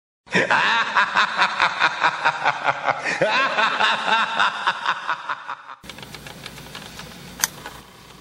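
A maniacal laugh: a long run of quick 'ha' pulses, about four a second, that stops abruptly a little under six seconds in. After that there is faint open-air background with one sharp click.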